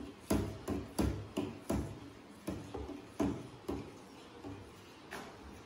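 Metal spoon knocking and scraping against the sides of a steel saucepan as a thick pudding mixture is stirred: short uneven clinks about twice a second, stronger in the first half.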